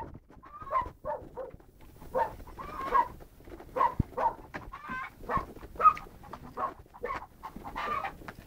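Chickens clucking: short, repeated calls, about two a second.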